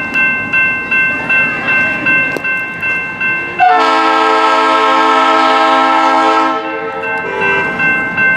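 Approaching diesel locomotive's air horn sounding one long blast of about three seconds, then a short toot, over a bell ringing in a steady rhythm, roughly three strokes every two seconds.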